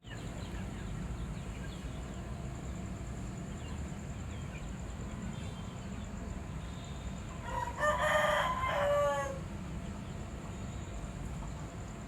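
Aseel rooster crowing once, about two-thirds of the way in, the crow ending on a held note.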